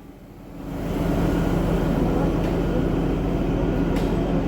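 Kalka–Shimla narrow-gauge toy train's locomotive drawing into the station, its engine sound rising about a second in and then running steadily with a low hum.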